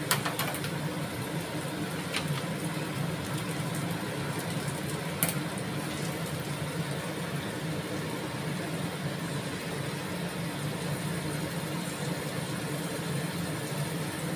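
Steady low hum of a running kitchen appliance, with a few short sharp clicks near the start, about two seconds in and about five seconds in.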